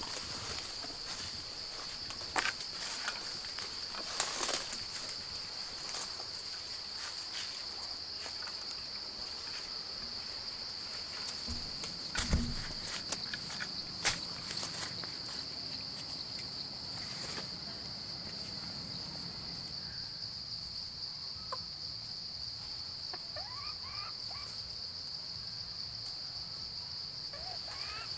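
A steady, high-pitched insect drone of crickets or cicadas, with barefoot footsteps and scattered knocks on a dirt forest path, loudest around the middle. A few faint short chirps come near the end.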